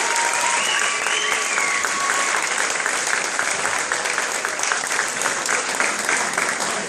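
Audience applauding and cheering: dense clapping throughout, with a few whoops and shouts in the first couple of seconds.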